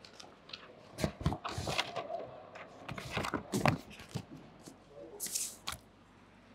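Handling noise on a clip-on microphone: a run of knocks, clicks and rubbing rustles as it is fiddled with by hand. It starts about a second in and stops shortly before the end.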